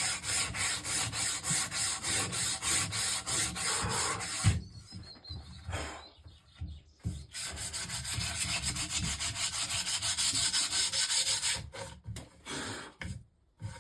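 Sandpaper rubbed by hand over an old varnished wooden table leg in quick back-and-forth strokes, about four a second, stripping off the old varnish. A knock about four and a half seconds in interrupts the strokes; they start again a couple of seconds later, with short breaks near the end.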